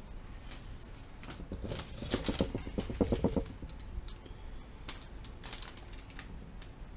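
A knife cutting lemon and aluminium foil crinkling under the hands: a dense run of rapid crackly clicks from about a second and a half in, lasting about two seconds, then scattered light ticks.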